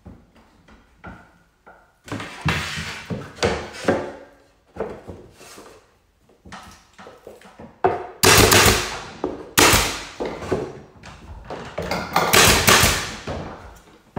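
Crown molding being handled and knocked into place against the ceiling, then a few sharp shots from a pneumatic nailer in the second half, the loudest about eight and nine and a half seconds in.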